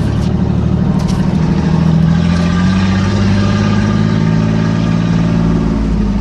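1992 Chevy Silverado 1500 pickup engine pulling steadily over a bumpy dirt track, its pitch and level rising a little about two seconds in. A couple of brief knocks come near the start and about a second in.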